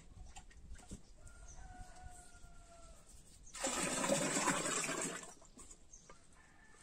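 Thick homemade yogurt poured from a steel pot into a stainless-steel butter churn, a splashing pour lasting about a second and a half, starting just past the middle.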